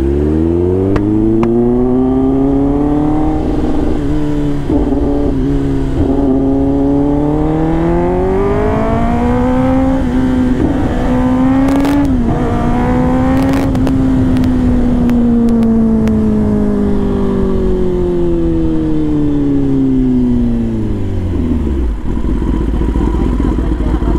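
Kawasaki ZX-10R inline-four engine under way: the revs climb steadily for several seconds, hold high, then ease down slowly and drop away near the end.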